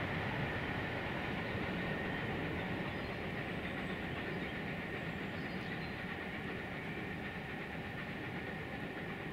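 Pullman railway coaches rolling away along the track, a steady wheel-on-rail noise that slowly fades as the train recedes.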